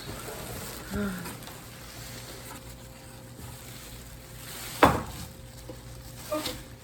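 Faint rustling and handling noises as a figure is taken out of its bag, with one sharp knock about five seconds in. Brief murmured vocal sounds about a second in and near the end.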